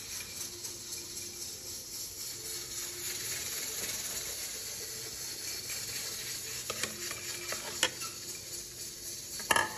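Steady low hiss with a few light clicks and knocks from dishes being handled: a plate against a bowl as raw chicken pieces are tipped into it. The knocks come about 7 and 8 seconds in and again just before the end.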